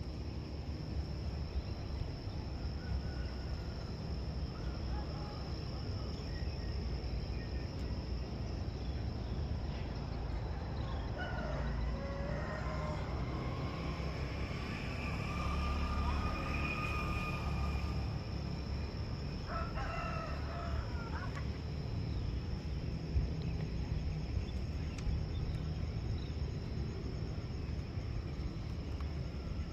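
A rooster crowing: one long drawn-out crow about twelve seconds in and a shorter crow around twenty seconds, over a steady high-pitched insect drone.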